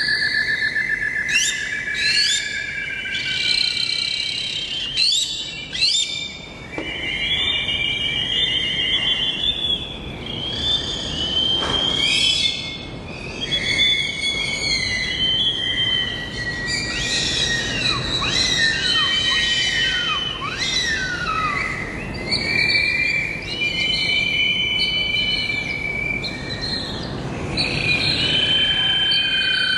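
Several birds singing and calling at once: overlapping whistled trills and chirps, with a few quick downward-sliding calls in the middle, over a low steady background hiss.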